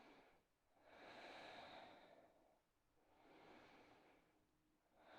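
Faint, slow, deep breathing held in a yoga stretch: a breath fading out at the start, two full breaths of about one and a half seconds each, and another beginning near the end.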